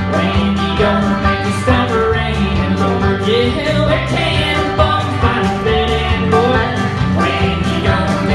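A country band playing live: guitars and a steady beat under a sung vocal line.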